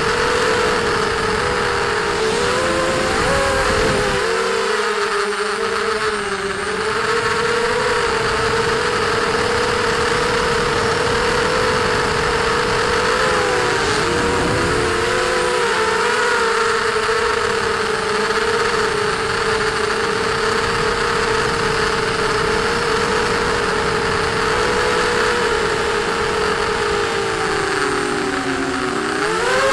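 ZMR250 quadcopter's four 2300 kV RCTimer brushless motors and propellers whining in flight, as picked up on the quad itself. Several close tones split apart and rejoin as the motors speed up and slow down. The pitch dips and rises a few times and sweeps down and back up near the end, over a steady rushing hiss.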